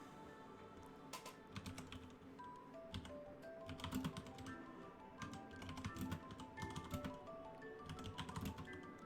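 Typing on a computer keyboard: irregular runs of quick keystrokes starting about a second in and stopping near the end, over soft background music.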